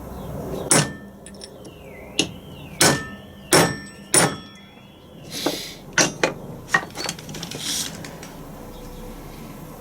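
About ten hammer blows at an uneven pace on a drift against a stuck bearing in a Land Rover LT230 transfer box, metal on metal, several of the middle blows ringing. The bearing is in tight and resists being driven out.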